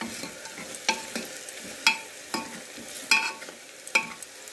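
Onions and spices sizzling in hot oil in an open pressure cooker while a metal ladle stirs them, its edge clinking and scraping against the pot wall about once or twice a second.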